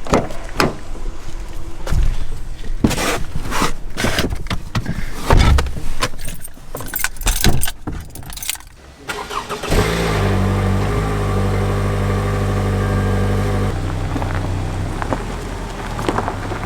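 A run of irregular knocks and clicks, then the family van's engine starts just under ten seconds in and runs steadily at idle. Its sound drops a little about four seconds after starting.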